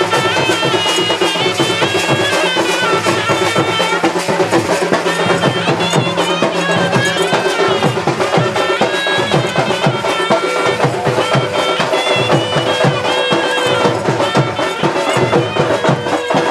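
Traditional folk music: a reedy wind instrument plays a bending melody over a steady drone, with fast hand percussion underneath. The drone drops out about seven seconds in while the melody and drumming go on.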